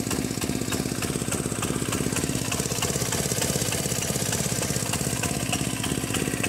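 Kinetic Honda scooter's small two-stroke engine running steadily after a cold start, with a slight misfire ("missing").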